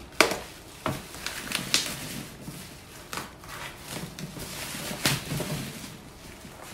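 Scissors snipping through bubble wrap, with the plastic crinkling and rustling as it is pulled apart. Irregular sharp snips and crackles, the loudest about a fifth of a second in and another about five seconds in.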